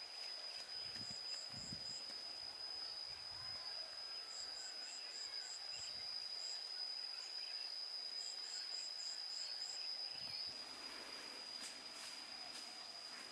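Rural outdoor ambience: a steady, high-pitched insect drone, with short runs of quick, high chirps every few seconds.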